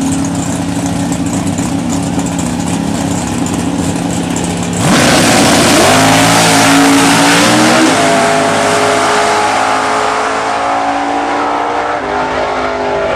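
Drag-race cars idling steadily at the starting line, then launching at full throttle about five seconds in, the engine pitch climbing, dropping at a gear change and climbing again before the sound eases off down the track.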